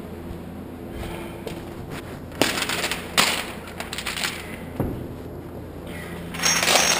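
A few sharp knocks and a short rattling clatter from gym equipment being handled around a barbell bench press. The loudest clatter comes near the end.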